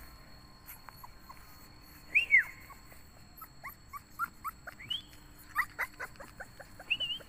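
Month-old Bắc Hà puppies whimpering: a loud falling whine about two seconds in, then a run of short, high squeaks and a wavering whine near the end.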